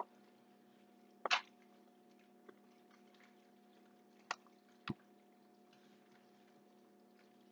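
Wooden spoon stirring macaroni coated in cheese sauce in a bowl: a few short, wet squelches and spoon knocks spread over several seconds, over a faint steady hum.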